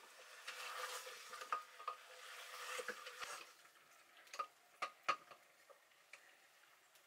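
Wooden spatula stirring and scraping mutton frying in an open metal pressure cooker, with a faint sizzle, followed by three sharp knocks of the spatula against the pot a little past the middle.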